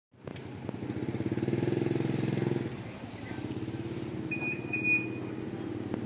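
A Toyota Camry 2.0's four-cylinder engine idling steadily after a remote start from the smart key. A brief high-pitched beep sounds a little past the middle.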